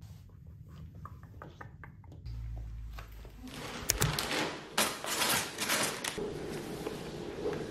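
A brown paper mailer bag rustling and crinkling as it is picked up and slit open with a utility knife, with a couple of sharp crackles. Faint ticks come first.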